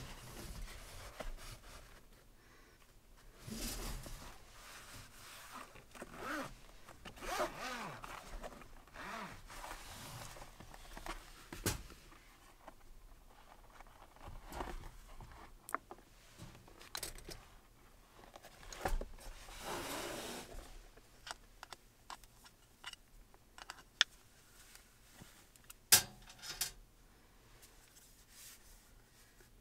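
Zipper on a hard-shell carrying case being drawn open in several long pulls, then a few sharp clicks and knocks as the gear is lifted out and set on the metal mesh table.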